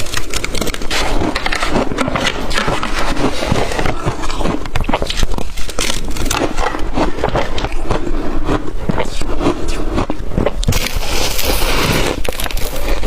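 Close-up crunching and chewing of blender-crushed ice in the mouth: a dense, continuous crackle of small cracks and crushing, with a hissier stretch near the end.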